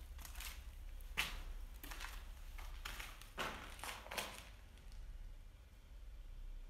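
Footsteps crunching and scuffing on grit and debris on a concrete floor, a handful of irregular steps, with the loudest about a second in.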